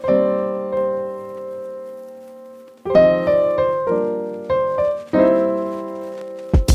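Piano music: chords are struck and left to ring and fade, with a quieter fading stretch before new chords come in about three seconds in. Just before the end, low, sudden drum-like hits start.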